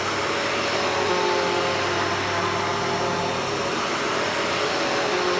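Hoover Hushtone upright vacuum running at full power on carpet: a steady motor hum with the brush roll making a constant sound, not a staccato one.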